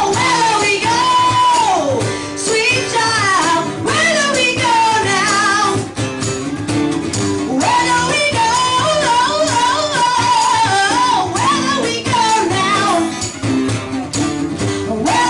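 A woman singing a melody over strummed acoustic guitars, played live by a small acoustic band.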